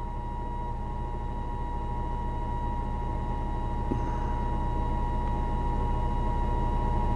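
Car engine idling steadily: a low hum with a thin, steady whine over it, slowly growing louder.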